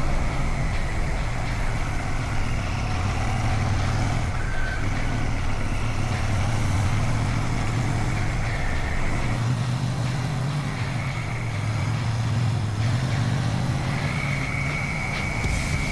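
Royal Enfield Shotgun 650's 648 cc parallel-twin engine running steadily under way on a ride.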